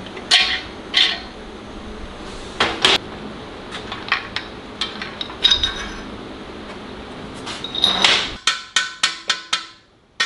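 Metal main bearing caps clinking and knocking against the block's studs and the block as they are lifted off a 440 Mopar big-block. The knocks come one at a time, then a quick run of about six clinks near the end.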